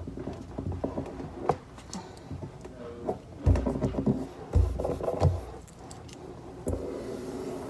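Hands working at a kitchen countertop: small clicks and clinks of metal scissors being handled, with rubbing and pressing on the counter surface. Two loud dull knocks on the counter come about three and a half and four and a half seconds in.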